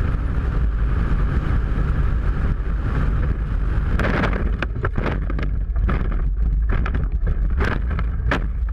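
Side-by-side UTV engine running, with wind buffeting the onboard microphone. From about four seconds in, a run of sharp knocks and rattles comes as the vehicle is jolted violently.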